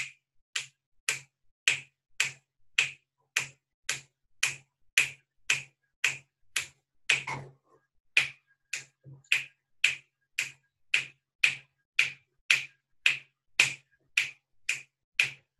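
Sharp, wet tongue clicks in an even rhythm, a little under two a second, as the tongue is pushed out of the mouth and pulled back behind the lower teeth over and over in a quick genioglossus–geniohyoid exercise. There is a brief break in the rhythm about halfway through.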